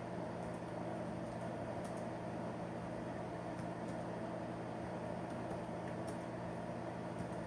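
Steady low electrical hum and hiss of room tone, with a few faint, sharp clicks.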